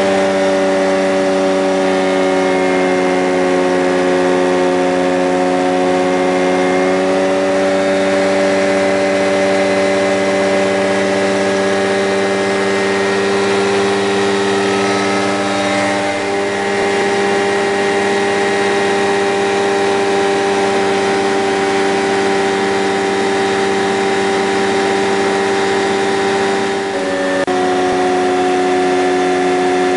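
Engine and propeller of a Rans Coyote ultralight droning steadily in flight, heard from inside the cockpit. Its pitch shifts slightly a few times.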